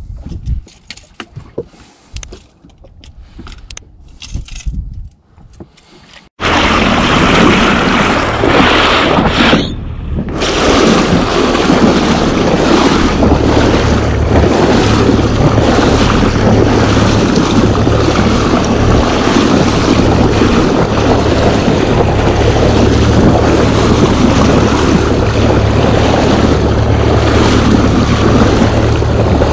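Scattered knocks and small splashes of a fish in a water bucket on a boat deck. About six seconds in, a sudden cut brings a loud, steady rush of wind on the microphone and sea water, with a low steady hum, from a camera just above the water on a boat under way.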